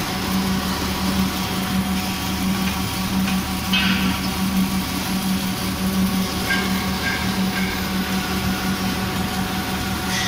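Automatic double-head circumferential welding machine running wire-fed arc welds around an LPG cylinder seam: a steady arc hiss and crackle over a constant, slightly pulsing low hum. A few short sharper hisses flare up, about four seconds in and again a couple of seconds later.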